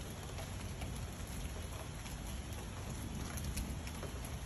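Steady rain falling, with scattered drops ticking close by and a low rumble underneath.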